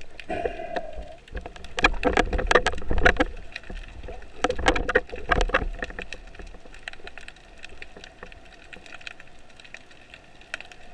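Underwater sound from a spearfisher's camera: low rushing water noise with clusters of sharp clicks and knocks, densest in two bursts in the first half, then quieter.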